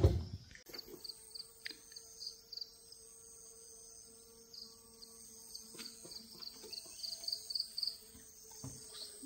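Insects chirping: a long run of short, high, evenly repeated pulses, with a faint steady hum beneath. A brief low thump right at the start is the loudest sound.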